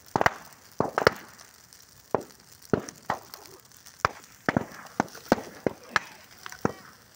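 Large bonfire of straw and bamboo burning, with irregular sharp cracks and pops, about two or three a second and some much louder than the rest, over a faint hiss of flames.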